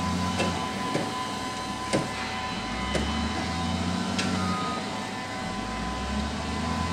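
Volvo L60F wheel loader's six-cylinder diesel engine revving up and easing off about three times as the machine maneuvers, with a few sharp knocks.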